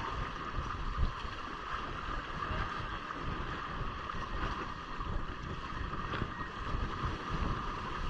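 Wind buffeting the microphone with a steady rush of water, aboard a Hobie Cat catamaran sailing in a strong wind.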